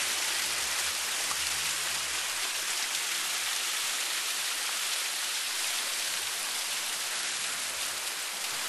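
Water from a boulder waterfall splashing and rushing down the rocks in a steady, even wash of noise.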